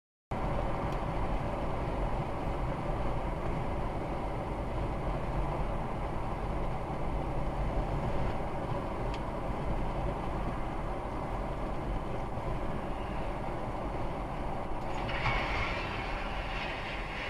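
Road and engine noise of a car at about 50 mph, heard inside the cabin: a steady rumble. About fifteen seconds in, a louder hiss joins for a couple of seconds.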